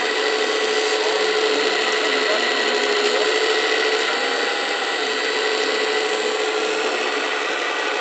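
Hydraulic pump of a 1:14.5 Wedico CAT 345 D LME model excavator running with a steady mechanical whine as the arm digs into dirt and lifts a loaded bucket.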